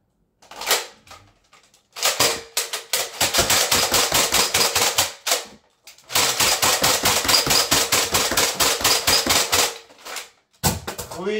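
Stock Nerf Alpha Trooper pump-action foam-dart blaster being slam-fired as fast as it can be pumped: a rapid clatter of pump strokes and dart shots, several a second. It comes in two long strings with a brief pause about halfway.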